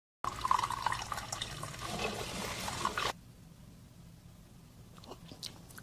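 Liquid pouring for about three seconds, then a quieter stretch with a couple of faint sips of a hot drink from a mug.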